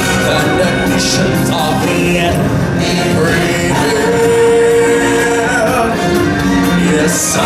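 Stage-show music with singing, steady and loud, with a long held note about halfway through.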